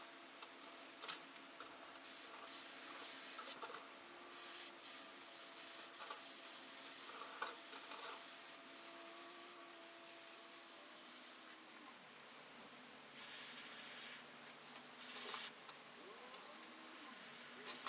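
Airbrush hissing in short, repeated bursts as the trigger is pressed and released, the longest and loudest burst a few seconds in, with quiet gaps between.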